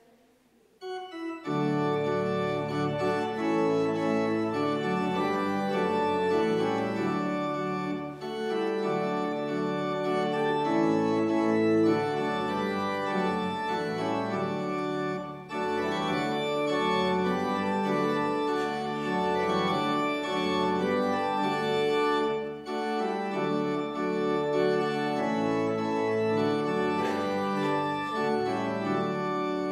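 Church organ playing held chords. It starts about a second in, with short breaks between phrases.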